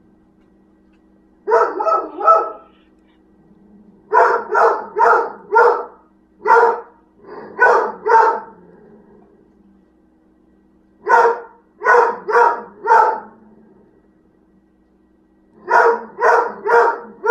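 Dog barking in quick runs of three or four barks with pauses of a second or more between runs, six runs in all, over a faint steady hum.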